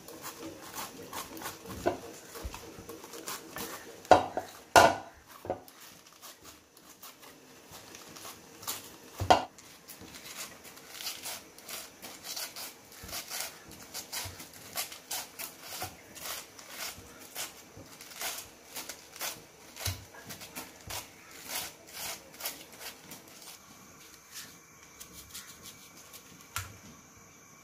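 Handheld vegetable peeler shaving a cabbage head into fine shreds over a plastic tray: a run of short scraping strokes, about two a second, with a few louder knocks about four and nine seconds in, dying away near the end.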